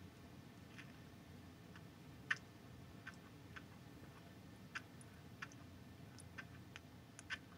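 Near silence: quiet room tone with faint, short clicks that come unevenly, about every half second to a second.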